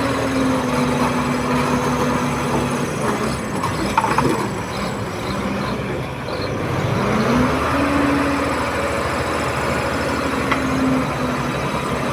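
Komatsu D31P crawler bulldozer's diesel engine running hard. Its pitch sags with a metallic clank about four seconds in, then rises again around seven seconds as the engine revs back up.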